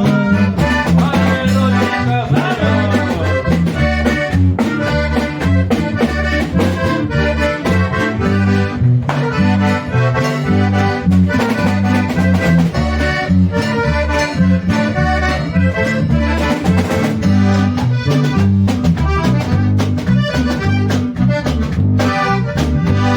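Instrumental break of a norteño song: an accordion plays the melody over a steady bass line and a regular beat.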